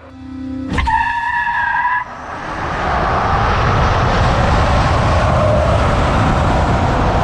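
Vehicle accelerating hard: a sharp hit and a steady two-note whine about a second in, then a loud rushing noise of tyres and wind that builds over a second and holds steady.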